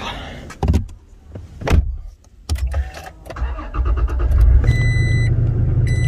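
Toyota Tacoma pickup: door and cab knocks as someone climbs in, then the engine starts about three and a half seconds in and runs at a steady low idle. A high dashboard warning chime sounds twice near the end.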